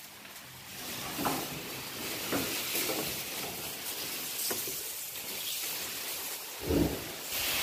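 Rustling of cut green fodder being carried and handled, with a few soft knocks and a louder thump near the end, over a steady hiss.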